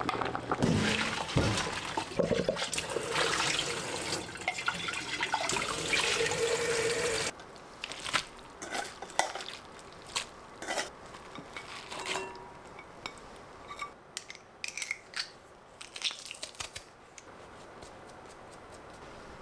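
Water or other liquid rushing and splashing in a kitchen, cutting off abruptly about seven seconds in. It is followed by scattered light clicks and clinks of dishes and utensils.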